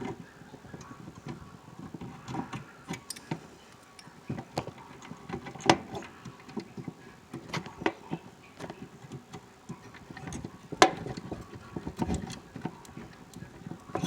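Pliers clicking and scraping on a stuck wire connector on a furnace control board as it is worked loose: a scatter of irregular small clicks and taps, with two sharper clicks near the middle and about two-thirds of the way in.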